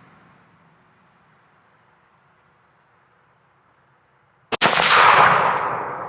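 A single shot from a Winchester Model 70 rifle chambered in 6.8 Western, fired about four and a half seconds in; the sharp crack is followed by an echo that dies away over about two seconds. Before the shot there is only faint background.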